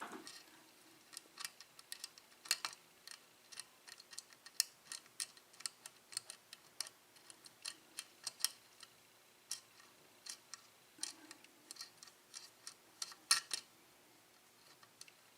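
Faint, irregular metallic clicks of a lock pick working the pins of a six-pin Corbin Russwin pin-tumbler cylinder during single-pin picking.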